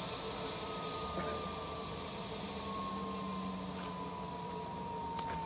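Homemade gas turbine built on a Holset WH2D turbocharger spooling down: a thin whine falling slowly and steadily in pitch as the rotor coasts to a stop.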